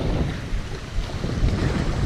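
Wind noise on the microphone, a low rumble that rises and falls in gusts.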